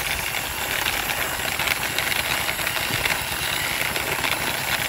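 Plastic toy truck rolling on its plastic wheels as it is pushed by hand across rough concrete, giving a steady grinding rattle.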